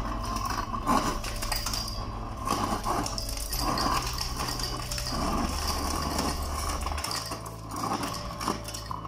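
Samsung RS64R5101B4 refrigerator's door ice dispenser crushing and dropping crushed ice into a drinking glass: a steady low motor hum under an irregular clatter of ice pieces hitting the glass.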